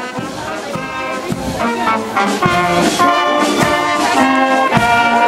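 Bavarian-style brass band with trumpets and saxophones playing while marching, with held chords that change every half second or so, growing louder as it comes nearer.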